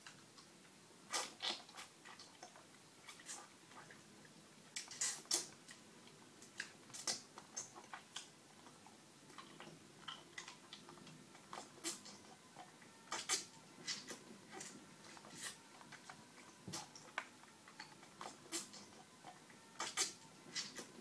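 Wet lip smacks and sucking clicks from mouths sucking on lollipops, coming irregularly at one or two a second.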